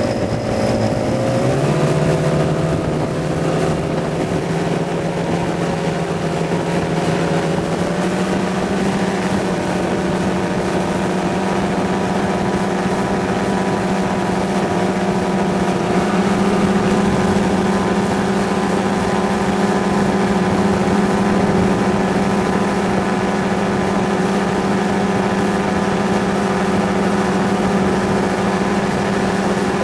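Paratrike's pusher engine and propeller droning steadily in powered flight. The pitch steps up a little shortly after the start and twice more later on.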